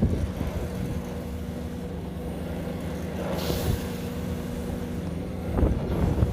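Heavy construction machinery running with a steady engine hum, with a short hiss about three and a half seconds in and a few knocks near the end.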